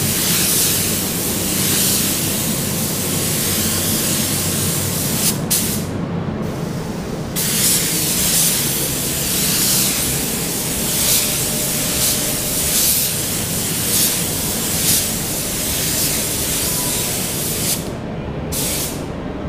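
Compressed-air paint spray gun dusting a light coat of base coat: a loud steady hiss that swells and eases with each pass. It stops for about a second and a half around six seconds in and cuts out near the end, with a steady low hum underneath.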